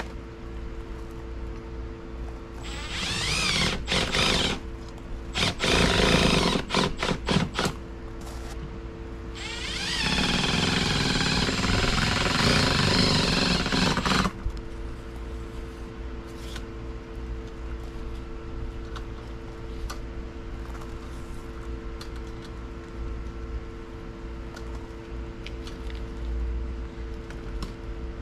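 Cordless drill/driver working at a metal inlet box on a house wall. It runs up once with a rising whine, then goes in several short stuttering bursts, then runs steadily for about four seconds before stopping.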